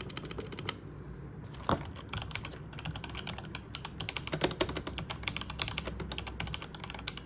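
Rapid typing on a mechanical keyboard with linear red switches. After a short pause about a second in, the keys are pressed in a quick, dense run of soft clacks.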